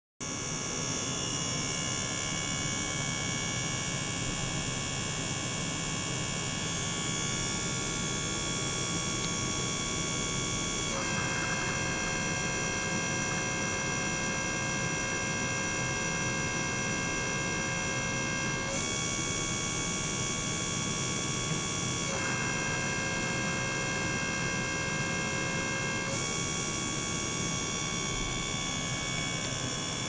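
Small electric gear pump running, circulating water: a steady hum with several high whining tones. The mix of tones changes abruptly about eleven seconds in, and again near nineteen, twenty-two and twenty-six seconds.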